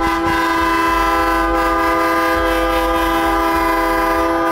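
A loud air horn held in one long steady blast, several notes sounding together as a chord.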